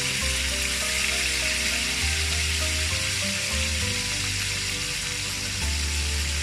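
Galunggong (round scad) frying in hot oil, a steady sizzle, with background music and a bass line under it.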